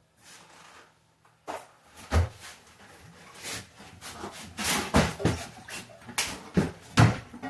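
Irregular knocks, bumps and scrapes of a toilet being handled and lowered into place over the floor bolts, with several louder thumps.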